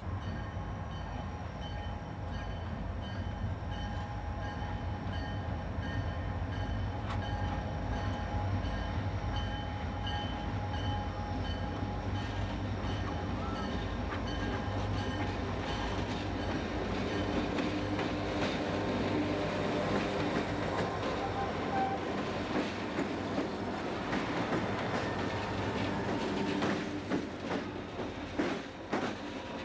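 A lash-up of four EMD and GE diesel locomotives hauling an empty coal train, rumbling as they approach and pass close by. Wheels click over the rail joints near the end as the locomotives go past.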